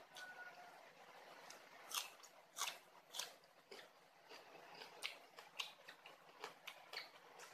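Close-up eating sounds: biting and chewing crisp raw vegetables, a string of irregular sharp crunches, loudest about two to three seconds in.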